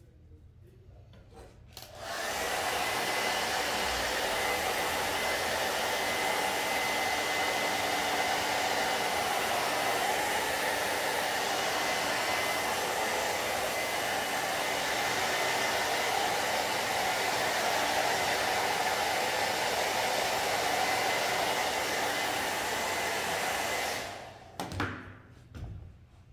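Handheld hair dryer blowing steadily, drying freshly screen-printed ink on a T-shirt, with a thin steady whine over the rush of air; it switches on about two seconds in and cuts off a couple of seconds before the end. Two short knocks follow.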